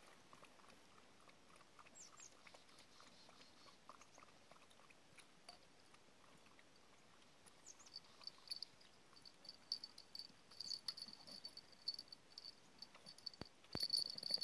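Faint insect chirping in quick repeated pulses that starts about eight seconds in and grows stronger near the end, over a quiet background with light scattered ticks. A couple of soft thumps come just before the end.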